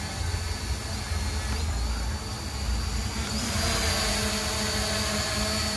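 Camera drone hovering, its motors and propellers giving a steady whine over a low hum. About three seconds in the sound gets louder and brighter, with an added higher tone, as the drone moves in closer.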